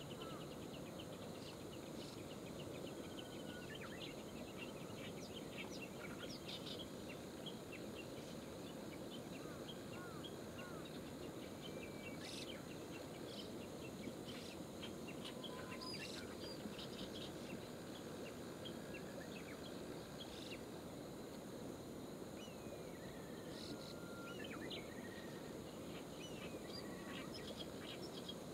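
Steady rushing of a flowing river, with scattered short songbird chirps and brief whistles over it throughout.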